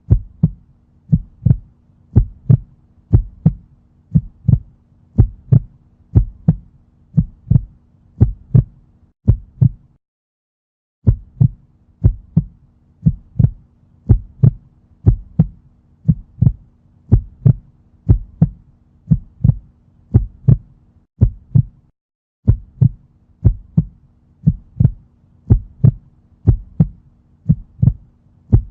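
A woman's heartbeat: a steady rhythm of paired lub-dub beats over a faint steady hum. The sound drops out for about a second twice, about a third of the way in and again about three-quarters through.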